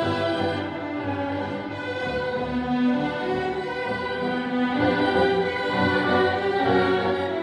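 Orchestral classical music with bowed strings playing sustained, shifting chords.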